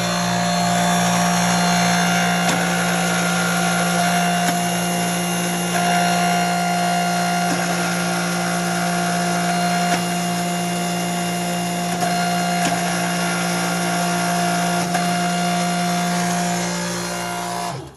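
Hydraulic press power unit, the motor driving the hydraulic pump, running steadily with a strong hum. It cuts off abruptly at the very end.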